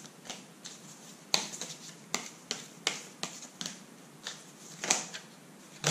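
Tarot cards being shuffled and handled: a dozen or so short, sharp card clicks and snaps at irregular intervals.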